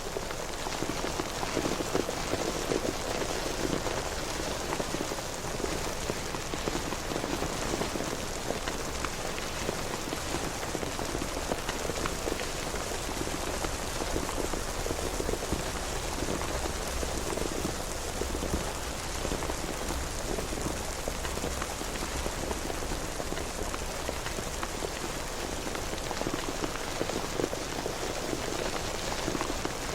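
Steady rain falling, with many individual drop hits heard through the constant hiss.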